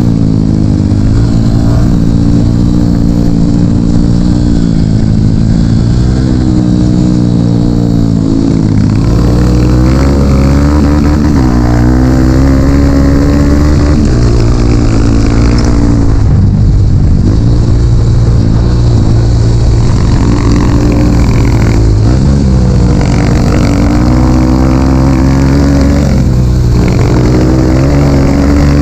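Dirt bike engine running loud under throttle, its pitch rising and falling continuously as the rider accelerates and eases off along an off-road trail, with brief let-offs of the throttle.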